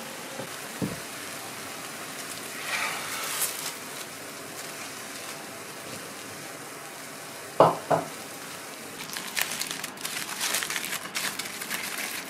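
A faint steady sizzle from a foil packet cooking on a hot cast-iron plate, with two short knocks about seven and a half seconds in. Near the end, aluminium foil crinkles as the packet is pulled open.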